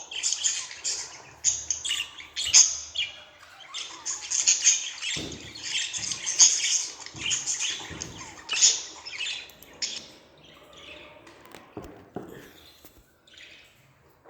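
Budgerigars chattering and chirping in a rapid, warbling stream of short high notes, thinning out over the last few seconds. A few dull thumps come through in the middle.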